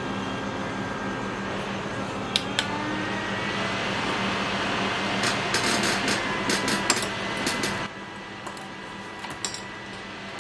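Hot air rework station blowing steadily on a phone's CPU to reflow it, with a few sharp clicks of tools on the board. The airflow cuts off suddenly about eight seconds in.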